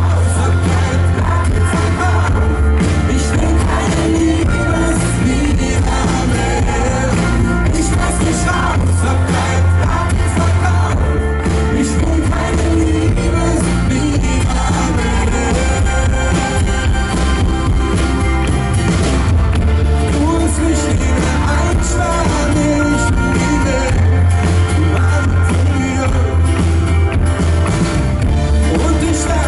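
Live pop-rock band playing a song with singing over it and a heavy, steady bass.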